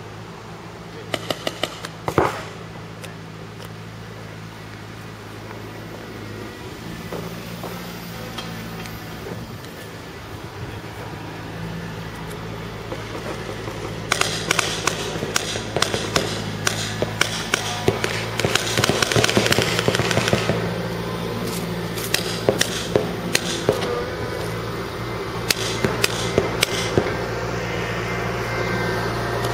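Paintball markers firing: sharp pops in quick volleys. A few shots come about a second or two in, then a long stretch of rapid fire from about halfway through, over a steady low hum.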